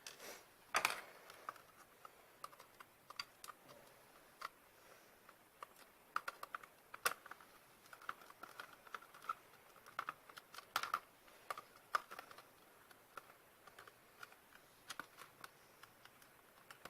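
Small screws being driven into a plastic headphone ear-cup housing with a small screwdriver: faint, irregular clicks and ticks, some in quick clusters.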